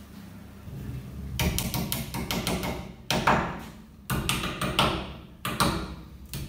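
Small hammer tapping wooden plugs into the screw holes of a wooden wall rail. Quick runs of light taps start about a second and a half in and come in three or four bursts.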